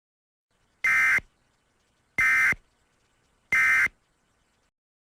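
Emergency Alert System end-of-message signal: three short bursts of SAME digital data tones, a little over a second apart, marking the close of the broadcast warning.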